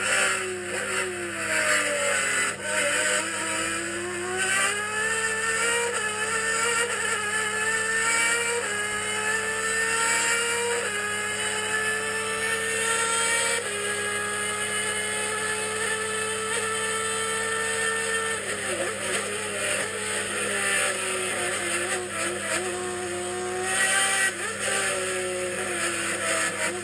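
Onboard sound of a Chevy race car's engine at full throttle on a lap. The revs climb and drop back at each upshift, several in a row, then fall away as the car slows about two-thirds of the way through, and climb again.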